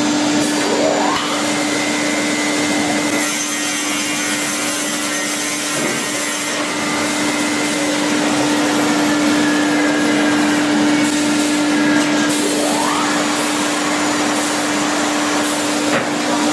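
Automatic plywood double-sided edge-trimming saw line running: a loud steady whir of motors and saw blades over a constant hum. A rising whine comes about a second in and again near 13 s.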